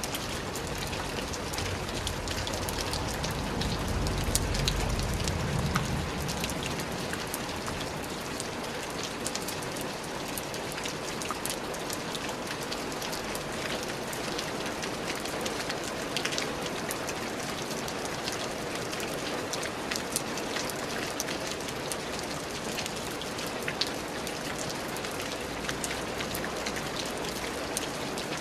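Steady rain falling on a surface, with many individual drop hits. A low rumble swells and fades about four to six seconds in.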